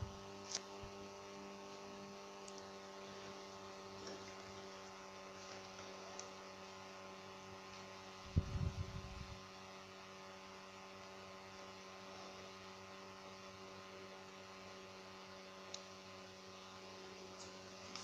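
Steady electrical hum, with a few faint clicks and one low bump about eight and a half seconds in.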